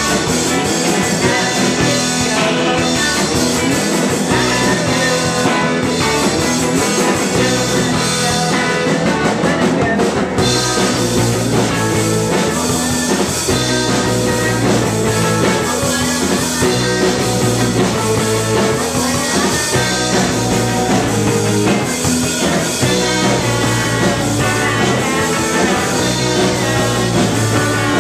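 Live rock band playing loud: electric bass and drum kit, with a woman singing into the microphone.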